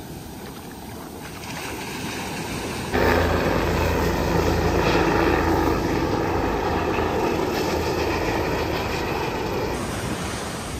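Wind rumbling on the microphone over the wash of surf. About three seconds in it turns suddenly louder and heavier, with a strong low buffeting, and eases near the end.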